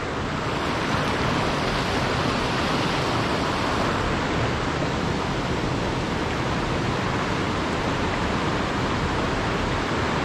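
Steady rush of water from a mountain stream.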